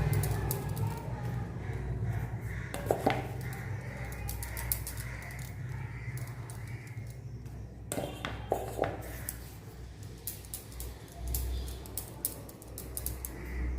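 Soft knocks and light handling on a kitchen work surface as balls of kochuri dough are handled, over a low steady hum. There is a knock about three seconds in and two more a little past the middle.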